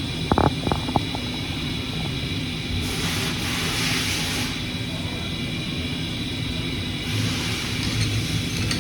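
Hurco CNC milling machine running with a steady mechanical whine of several tones. A quick cluster of sharp clicks comes about half a second in, and a hiss swells and fades between about three and four and a half seconds in, with another hiss starting near the end.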